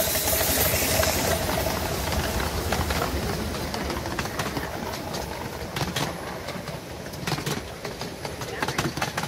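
A miniature-railway steam train passing close by. A hiss of steam from the locomotive fades over the first second or so, then the passenger carriages rumble past on the rails with a few sharp clicks from the wheels.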